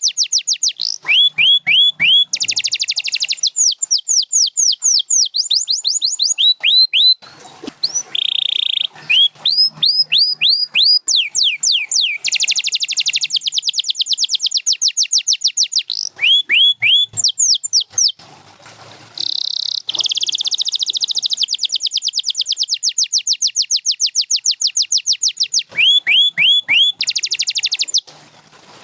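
Domestic canary singing a long song made of fast runs of repeated notes: quick falling whistled sweeps and buzzy trills, each phrase repeated many times before it switches to the next. There are brief pauses about seven seconds in, around eighteen seconds, and near the end.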